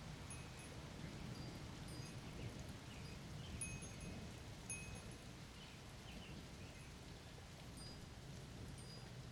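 Wind chimes ringing in scattered short, clear notes over a steady low background rumble of the storm.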